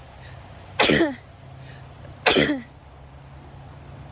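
A woman sneezing twice, about a second in and again a second and a half later, each a short sharp burst with a quickly falling voiced 'choo'. These are sun sneezes (photic sneeze reflex) set off by looking into bright sunlight, part of a run of five.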